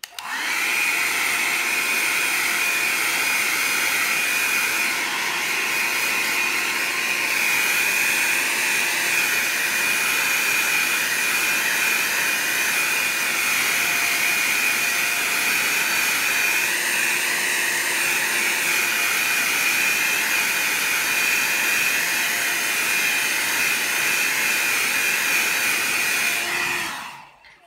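Handheld hair dryer blowing on wet watercolour paper to dry the paint: a loud, steady rushing blow with a steady high whine. It switches on at the start and cuts off near the end.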